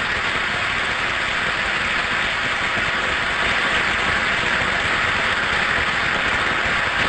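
Large audience applauding: a long, steady round of clapping from a packed hall.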